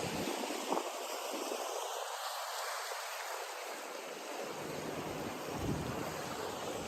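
Steady rush of wind and sea waves, an even hiss with no distinct events.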